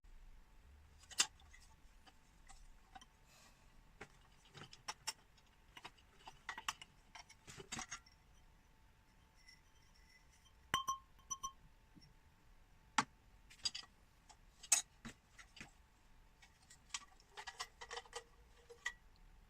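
Scattered clicks, taps and small clinks of metal and glass as an old oil lamp is handled and taken apart, with a few brief ringing clinks about eleven seconds in and a short squeak near the end.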